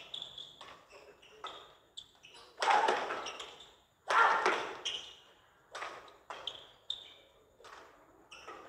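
A badminton rally: sharp racket strikes on the shuttlecock at irregular intervals, with high squeaks of players' shoes on the court mat. Two louder bursts of noise stand out, about two and a half and four seconds in.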